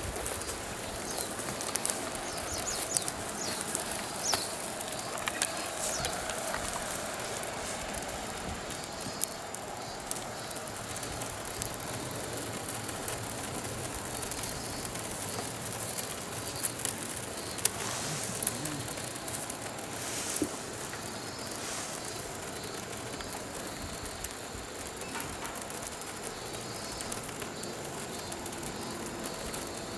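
Signal fire burning, with scattered crackles and pops over a steady hiss.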